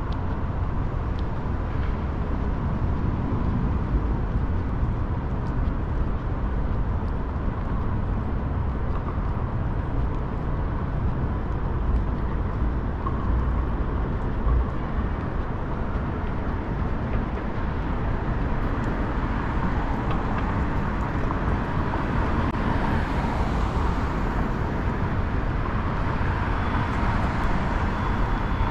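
City street traffic: a continuous rumble of passing cars and vehicles, with a faint steady tone underneath. In the last several seconds a vehicle grows louder as it comes close.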